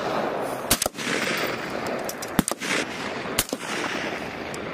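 Suppressed 7.62 mm H&K M110A1 semi-automatic rifles firing several single shots at irregular intervals, each sharp report trailing off in a long echo.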